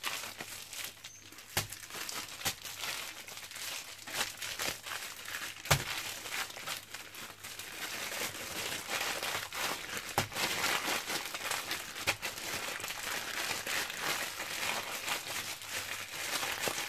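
Clear plastic freezer bag rustling continuously as hands squeeze and knead ground pork and beef inside it to work in the fish sauce and sugar, with a few sharp knocks, the loudest a little under halfway through.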